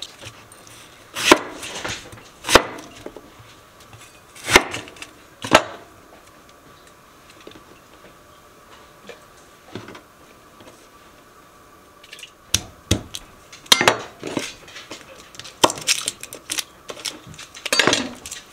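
Kitchen knife knocking on a wooden cutting board as onions and garlic are cut and peeled. A few separate knocks come in the first six seconds, then a quiet stretch, then a busier run of taps and knocks over the last six seconds.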